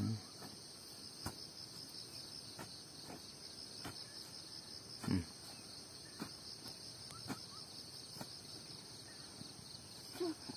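Steady, finely pulsing insect trill, like crickets, with a few dull thuds and scrapes of a long-handled spade cutting into soil, the loudest about five seconds in.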